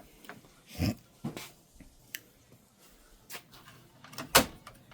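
Plastic parts of an inkjet printer being handled while the cartridges and printhead are checked: a few scattered clicks and knocks, the loudest a sharp knock near the end.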